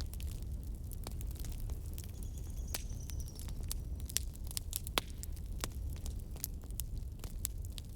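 Campfire crackling: burning wood giving irregular sharp pops and snaps over a low, steady rumble, with two louder snaps around the middle. A faint high whistle sounds briefly a couple of seconds in.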